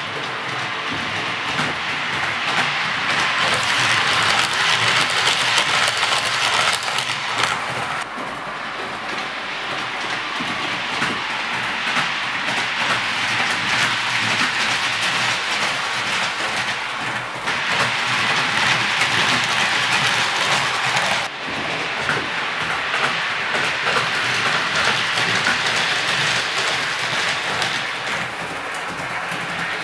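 00 gauge model trains running on the layout's track, a continuous rolling noise of small motors and wheels on rail. The sound shifts abruptly about 8, 17 and 21 seconds in.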